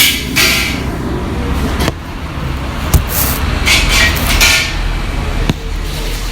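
Restaurant kitchen cooking: a metal spatula scrapes a wok in short bursts, with a few sharp clanks, over a steady low rumble.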